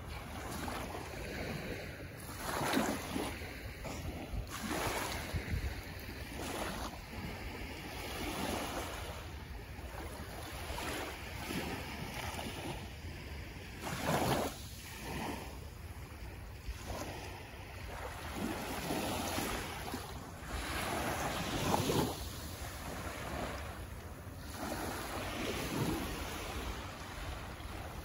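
Small waves lapping and washing up on a sandy shore, swelling and fading every few seconds, with wind on the microphone.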